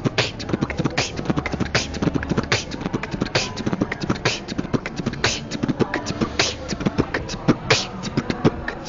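Human beatboxing a beat: a rhythmic pattern of mouth-made bass-drum, hi-hat and snare sounds, with the snare about every 0.8 s. Between them come kick rolls, quick double-pedal-style bass-drum rolls built from the syllables T-B-D-B.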